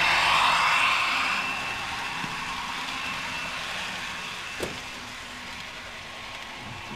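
A model train passing close and running away: the BB 67349 locomotive's sound decoder plays a diesel engine note over the running noise of the coaches on the track. It is loudest in the first second and fades after that, with a single sharp click about four and a half seconds in.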